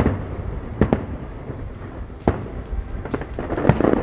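Aerial fireworks shells bursting: sharp bangs at the start, about a second in and a little past two seconds, then a quicker run of bangs near the end, over a low rumble.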